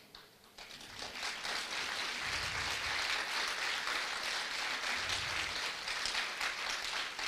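Audience applauding: scattered clapping starts about half a second in and builds within a second into steady applause.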